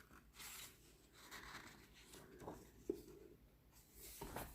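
Faint rustling of paper pages being handled, in a few soft swishes, with a light click about three seconds in.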